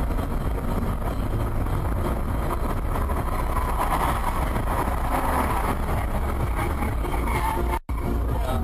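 Steady engine and road rumble of a moving car, recorded by its dashcam, with a brief dropout in the sound near the end.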